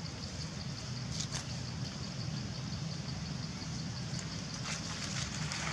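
Steady outdoor background: a low hum like a distant engine, and a high, evenly pulsing buzz, with a few brief rustles about a second in and near the end.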